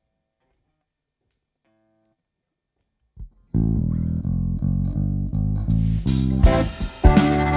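A jazz-rock band starts up after about three and a half seconds of near silence: a guitar and bass guitar riff in repeated low notes, with drums and cymbals coming in about two seconds later.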